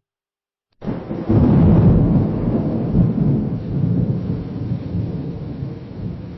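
A lightning strike cracks suddenly about a second in. Loud thunder follows, rumbling and slowly fading.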